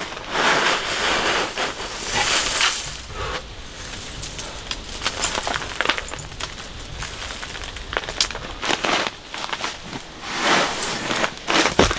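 Rustling with scattered small clinks and knocks, as of gear being handled and moved about; the rustling swells up three times, near the start, a couple of seconds in and near the end.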